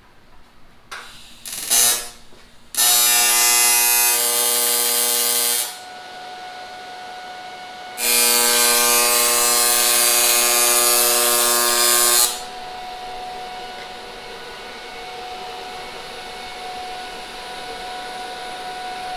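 Electric welder running beads on a cast aluminum LS oil pan: two runs of about three and four seconds, each a steady buzz over loud hiss, with a fainter steady hum between and after them. The oil-soaked pan has been preheated in a barbecue, and the thick section is reluctant to weld.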